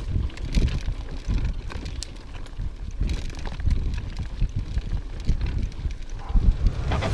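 Mountain bike rolling over a dirt trail: low tyre and frame rumble with scattered clicks and knocks from the bike rattling over bumps, and wind buffeting the microphone.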